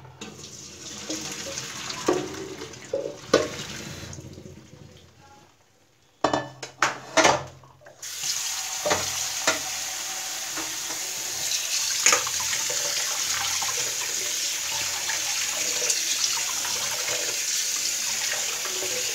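Boiled spaghetti and its cooking water poured from a pot into a stainless steel colander in a sink, with a couple of metal knocks. After a brief quiet and a few more knocks about six seconds in, a kitchen tap runs steadily onto the spaghetti in the colander as it is rinsed in cold water.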